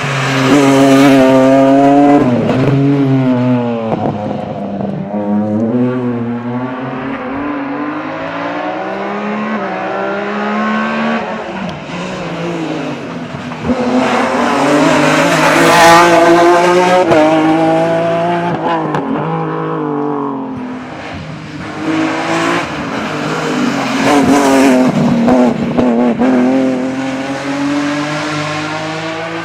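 BMW 130i rally car with an M3 engine driven hard, the engine revving up and dropping back again and again through gear changes and lifts. It swells loudest about a second in, again near the middle and again past two-thirds of the way.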